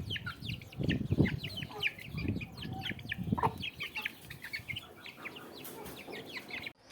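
Many Aseel chicks peeping, a constant overlapping run of short, high, falling cheeps, with a few louder low sounds mixed in during the first half. The sound cuts out abruptly just before the end.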